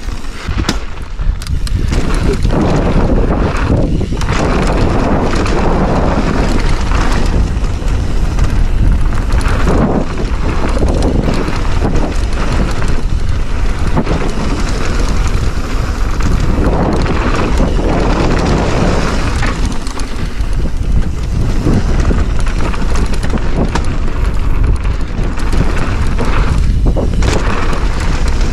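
Wind rushing over the microphone and the rumble and rattle of a mountain bike descending a dirt bike-park trail at speed, with many small knocks from the bike hitting bumps.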